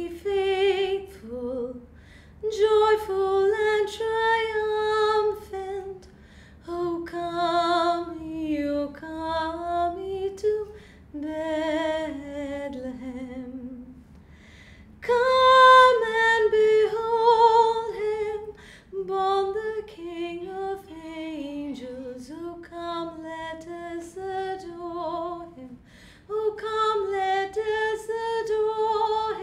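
A woman singing a Christmas hymn solo and unaccompanied, in held phrases with brief pauses between them.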